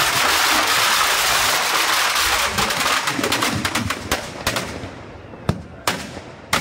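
Firecrackers packed inside a burning Ravan effigy going off: a dense rattle of crackling bangs for the first few seconds, thinning to scattered single bangs, with a few sharp loud reports near the end.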